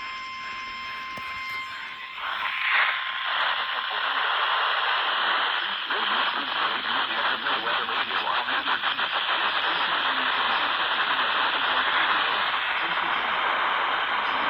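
Hiss and static from an FM receiver (RTL-SDR) tuned to a weak NOAA Weather Radio channel. A faint steady whistle fades out about two seconds in as the hiss swells, and the static flutters rapidly for a few seconds in the middle.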